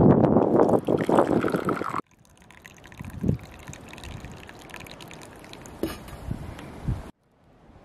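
Liquid running or splashing loudly for about two seconds, then cut off abruptly. A much quieter stretch with a few soft knocks follows, and there is a brief silent gap near the end.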